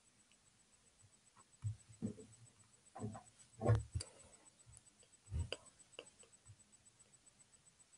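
A few soft clicks and knocks, scattered and irregular, from a Chromebook touchpad being used to pick and place an image, over quiet room tone; the loudest comes about halfway through.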